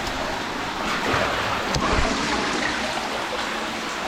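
Steady rush of flowing water from a cave stream or waterfall, with a single light click just before two seconds in.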